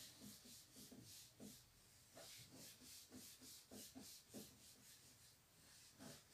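Marker drawings being wiped off a whiteboard: faint, repeated rubbing strokes across the board with soft knocks.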